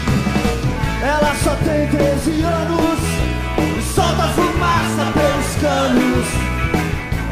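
Rock song playing: a full band with a steady drum beat.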